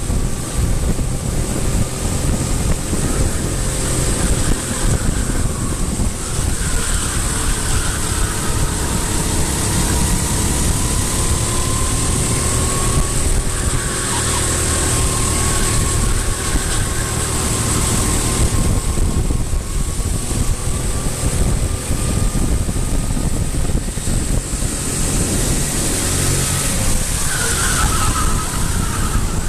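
An engine running with its pitch slowly rising and falling, under heavy wind rumble on the microphone.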